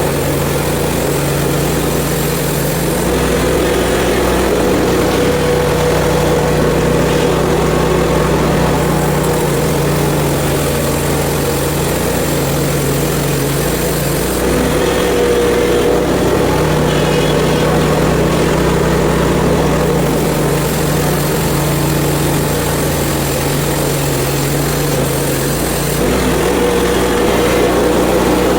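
Hud-son HFE30 portable bandsaw mill running steadily: its gas engine holds a constant speed while the band blade cuts a log.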